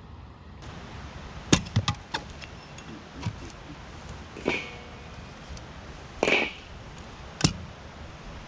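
A series of irregular sharp knocks and clinks from hard objects being handled, about six in all, the loudest about a second and a half in; two near the middle ring briefly like metal or glass.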